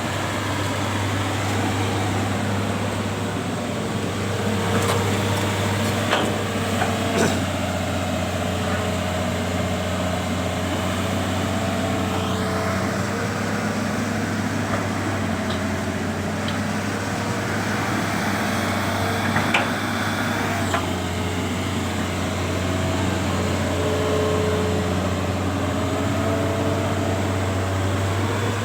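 Excavator's diesel engine running steadily, with a wavering higher tone over the drone and a few sharp metallic knocks, clustered around five to seven seconds in and again around twenty seconds in.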